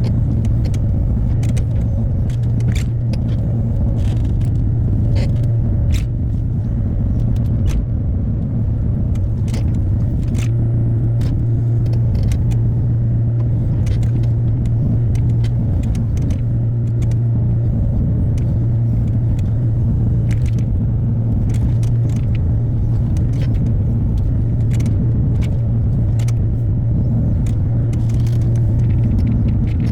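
Hyundai HX60A mini excavator's diesel engine running steadily under work with a low hum, along with frequent sharp clicks and knocks from the machine at work.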